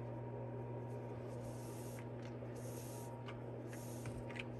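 Soft swishes of yarn being drawn through knitted fabric as a seam is backstitched with a yarn needle, a few strokes in the middle, over a steady low hum.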